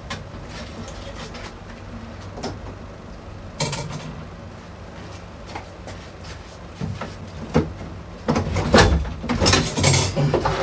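Knocks, clunks and rattles of a DeWalt jobsite table saw being handled and lifted out of its plywood cabinet. There are scattered clicks at first and a single knock a few seconds in, then a dense clatter near the end as the saw comes free.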